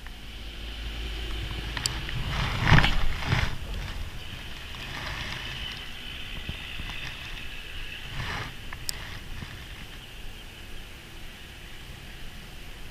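Handling noise from rigging and casting a spinning rod: rustling and knocks, loudest about three seconds in and again near eight seconds, with two sharp clicks, over a steady outdoor hiss.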